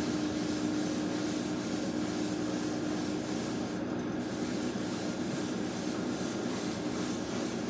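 Steady hiss of a Mr Hobby PS-290 trigger airbrush spraying Mr Hobby Surfacer 1000 primer, with a steady hum underneath. The hiss cuts out briefly about four seconds in, then resumes.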